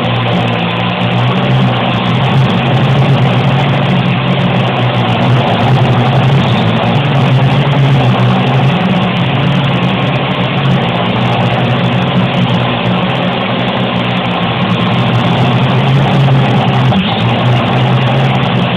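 Parrot AR.Drone 2.0 quadcopter's rotors buzzing steadily in flight: a constant low hum under an even rushing whir.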